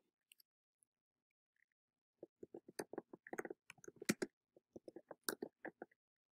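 Typing on a computer keyboard: a quick, irregular run of keystrokes that starts about two seconds in and stops shortly before the end.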